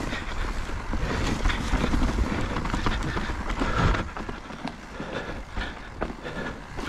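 Mountain bike riding down a rough trail: heavy wind noise on the microphone over tyres on dirt and stones and the bike rattling over bumps. The wind rumble eases about four seconds in.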